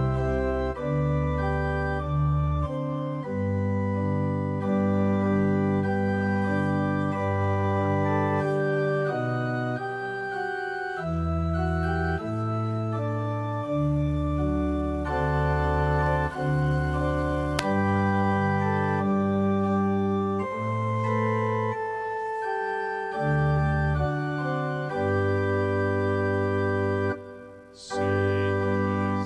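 Electronic keyboard set to an organ voice, playing hymn accompaniment in held chords. It breaks briefly about 27 seconds in, between verses.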